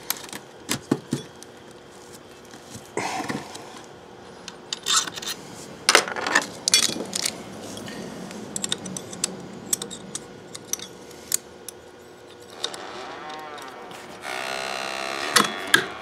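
Clicks, clinks and rattles of a Makita cordless oscillating multi-tool being handled and assembled, its metal accessory clamp and plastic parts knocking together, with some rustling. A louder steady noise lasts about a second and a half near the end.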